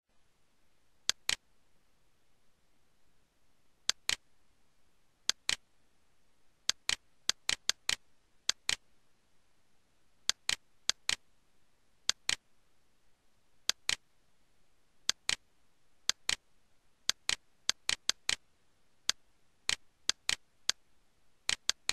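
Computer mouse button clicking at irregular intervals, most clicks coming in quick pairs, over a faint steady hiss.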